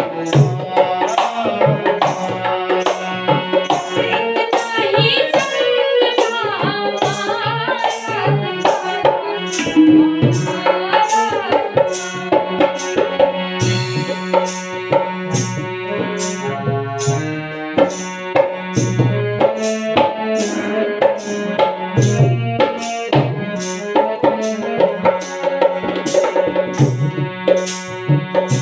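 Instrumental interlude of a Hindi bidai song: a steady drum rhythm under a melodic lead line that glides and bends in pitch.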